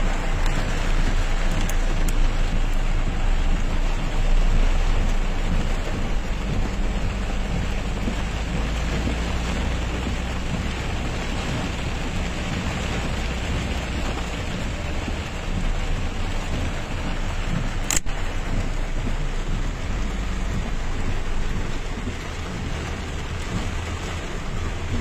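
Heavy rain drumming on a moving car, heard from inside the cabin, over the low rumble of the car driving on a wet, flooding road. One sharp click about two-thirds of the way through.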